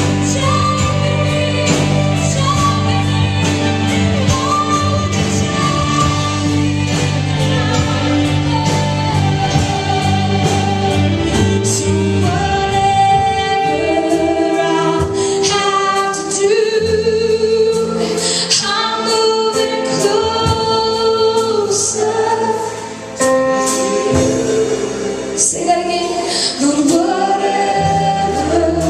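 Live worship music: a band plays while a female voice sings, with others singing along.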